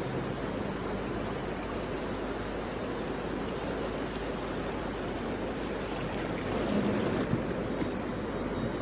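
River water running steadily over stony shallows, an even wash of water noise, with a slightly louder stretch and a small knock about seven seconds in.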